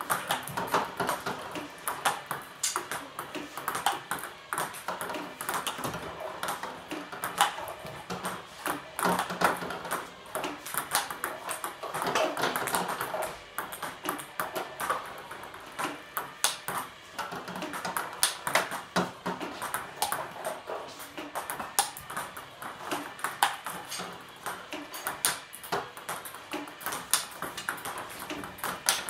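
Table tennis rally: the celluloid ball clicking off paddles and the table in an irregular run of sharp, quick knocks, a few a second.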